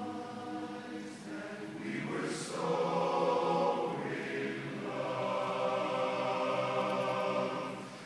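Large men's barbershop chorus singing a cappella in close harmony on sustained chords, swelling louder about two and a half seconds in and easing off near the end.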